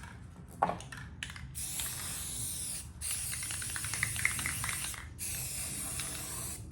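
Aerosol can of self-etching primer spraying in three long bursts with brief breaks between them, after a few short knocks.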